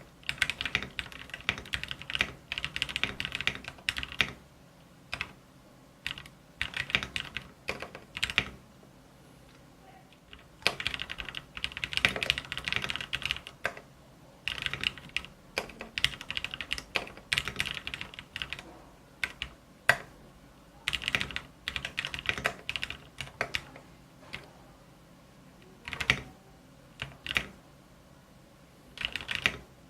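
Typing on a custom 60% mechanical keyboard in a wood and aluminium case: runs of rapid key clicks lasting a few seconds each, broken by short pauses.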